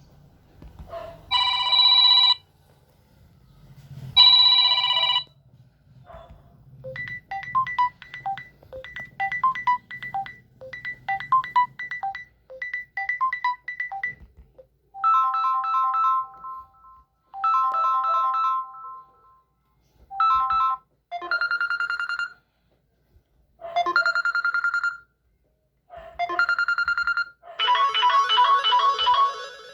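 Samsung Galaxy A03s stock ringtones playing one after another: several different short electronic melodies, each repeating a brief phrase with short pauses between, and a busier, fuller tune starting near the end.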